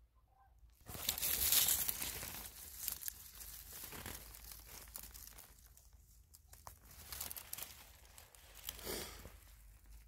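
Irregular rustling and crinkling, starting about a second in and loudest for the next second, then going on more softly in patches.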